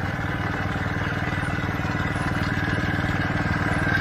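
A small engine running steadily with a fast, even low pulsing.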